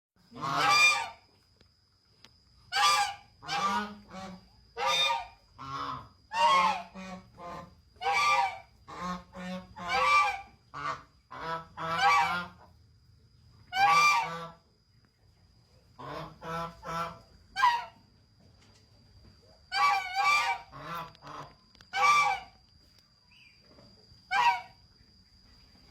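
A large bird calling over and over: loud, harsh, rasping calls, some single and some in quick runs of two to four, with short pauses between.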